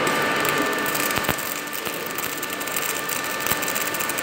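MIG welding arc crackling steadily as an H beam is tack welded, with a few sharper clicks, over a steady machine hum.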